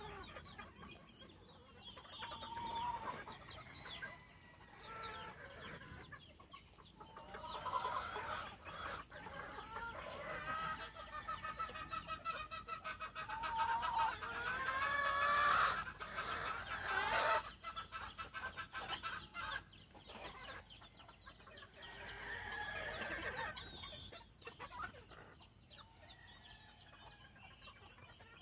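Gamefowl chickens clucking and calling on and off, with a rooster crowing a little past the middle, the loudest call in the stretch.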